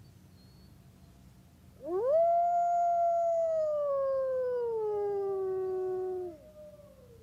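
Wolves howling: one long howl that swoops up, holds, then slowly falls in pitch for about four seconds, with a second, fainter howl joining near its end and trailing off lower.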